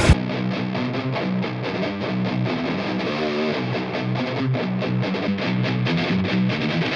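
Distorted electric guitar through a high-gain tube guitar amp, playing a riff of rapid picked notes with a wavering bent note about halfway through. Right at the start the tone switches abruptly to a thinner sound with less deep bass and treble.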